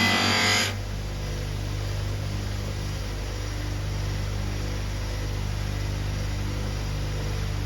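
Background music cuts off about a second in, leaving a steady electric motor hum.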